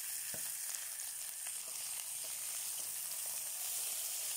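Salmon fillets sizzling steadily in olive oil and butter in a grill pan, with a few faint taps of a wooden spatula as the fillets are turned over.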